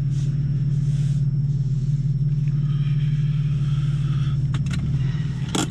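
BMW M4's twin-turbo inline-six with Akrapovic exhaust running at low revs, heard from inside the cabin as a steady low drone while the car rolls slowly. A few sharp clicks come near the end.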